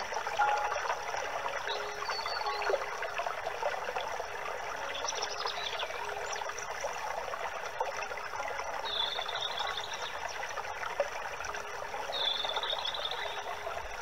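Steady trickling water, like a small stream. A few short high bird calls sound over it, two of them in the second half.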